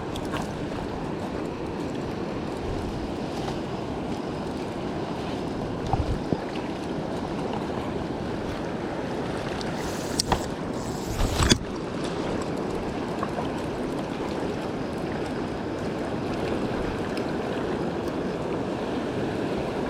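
Steady rush of a mountain river's flowing water, with a few brief knocks near the middle.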